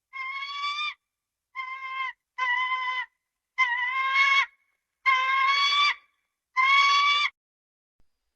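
Gallimimus dinosaur sound effect: six short, bird-like calls, each under a second and steady in pitch, separated by dead silence.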